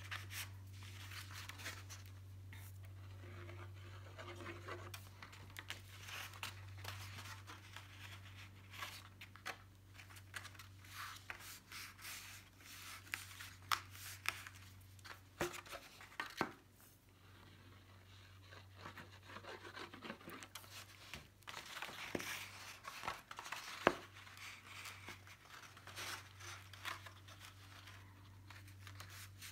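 Stiff cardstock paper petals being handled and pressed down by hand: irregular rustling, rubbing and crinkling of paper, with a few sharp taps. A steady low hum lies underneath.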